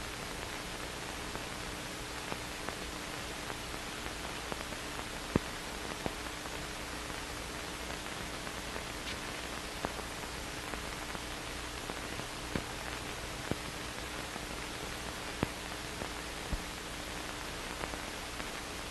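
Steady hiss of an old film soundtrack, with a faint steady hum and scattered small clicks and pops.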